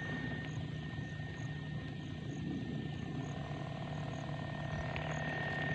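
Motorized knapsack sprayer running steadily while spraying weedkiller: a low hum with a thin high whine, a second tone joining about three seconds in.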